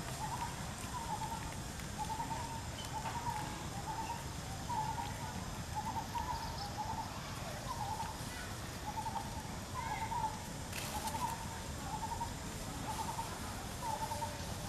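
A bird calling over and over in the background: a short, hollow call repeated about twice a second, with a steady low rumble underneath.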